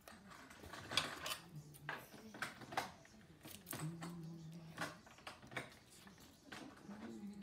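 Scissors snipping and paper and tape being handled on a tabletop: scattered sharp snips and rustles. A low steady tone sounds briefly twice, at about one and a half and four seconds in.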